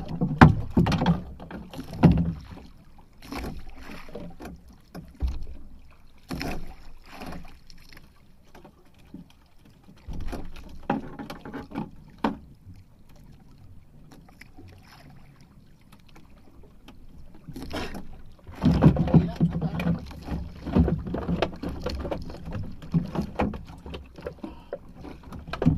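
Irregular knocks, thumps and rustles as a fisherman works his line and gear in a small outrigger fishing boat, over wind buffeting and water slapping the hull. The knocking is busiest in the last third.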